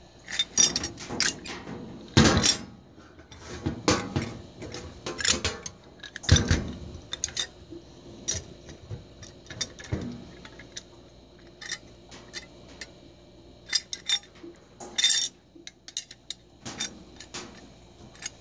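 A wrench and a brass CO2 regulator clinking and knocking as the regulator's working pressure gauge is wrenched loose: irregular sharp metal knocks and clinks, the loudest about two seconds in and again about six seconds in.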